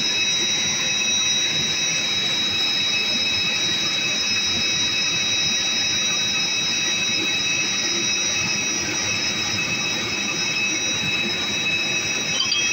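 Steady jet-turbine whine from the Airbus A320 standing by for pushback: several high, unchanging whining tones over a constant rush of noise.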